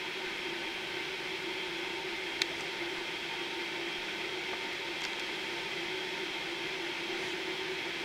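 Steady background hiss with a faint hum, broken by one sharp click a couple of seconds in and a fainter click about five seconds in.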